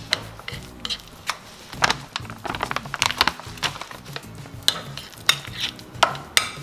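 Almond flour and melted butter being mixed by hand in a glass bowl: a string of short scrapes and clinks against the glass, irregular throughout. Quiet background music runs underneath.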